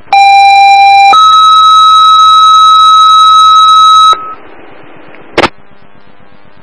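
Two-tone sequential pager alert sent over a fire dispatch radio channel: a lower steady tone for about a second, then a higher tone held for about three seconds, paging out the fire investigators. A short burst of radio squelch noise follows about a second after the tones stop.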